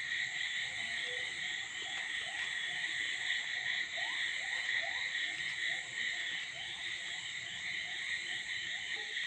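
Steady high-pitched chorus of insects, with a run of short rising chirps, a few each second, through the middle.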